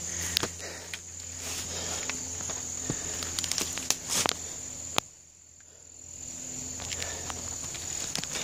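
Steady high insect drone, with a few sharp clicks and light knocks from the phone being handled and moved. The background drops away for about a second just after the middle.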